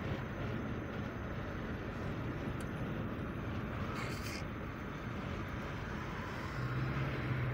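Steady road and engine noise inside a moving Toyota car's cabin, with a short hiss about four seconds in and a low steady hum joining near the end.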